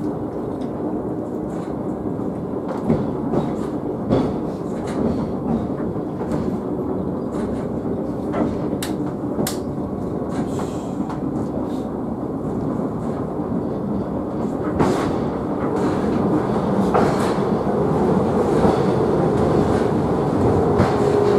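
Sakamoto Cable funicular car running downhill: a steady rumble of its steel wheels on the rails with a faint hum and scattered sharp clicks. It grows louder about three-quarters of the way in as the car runs into a tunnel.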